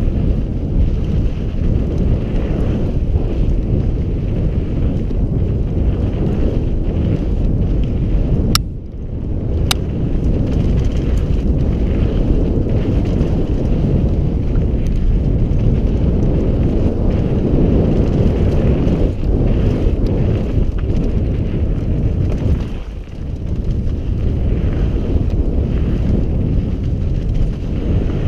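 Mountain bike descending fast on a dusty, rutted dirt trail: a steady low rumble of wind buffeting the camera microphone, mixed with the tyres rolling over dirt and the bike rattling. The noise drops briefly twice, and two sharp clicks follow the first drop.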